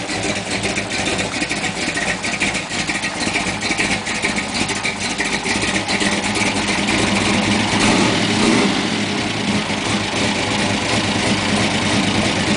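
Swamp buggy's 396 big-block V8 running steadily under light throttle, with no air cleaner on it, as its big tread tyres churn through swamp water. The engine gets a little louder from about eight seconds in.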